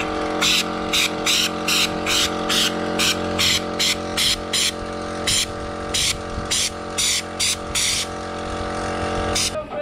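A compressed-air schutz-type spray gun shoots Bully Liner in short hissing bursts, about two a second, as the trigger is pulled and let go; the bursts stop near the end. An air compressor hums steadily underneath, coming in right at the start.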